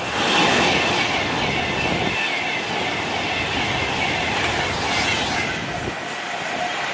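A Class 390 Pendolino electric train passing at speed, a steady loud rushing noise with a faint high tone running through it.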